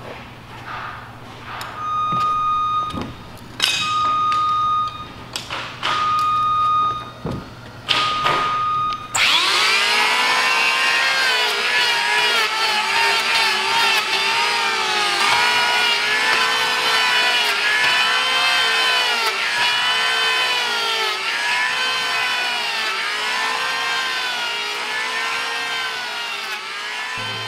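Electric hand planer shaving yellow cedar. Four short bursts in the first nine seconds, then a continuous run in which the motor whine dips and recovers about once a second as the blade takes pass after pass.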